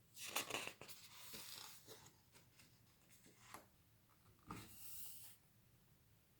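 Paper rustling from the pages of a picture book being turned and handled, in a few short bursts: one right at the start, a softer stretch just after, and another about four and a half seconds in.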